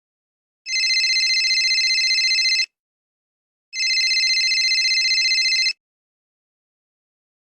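Telephone ringing twice, each ring about two seconds long with a fast trilling warble and a short pause between: a stock phone-ring sound effect.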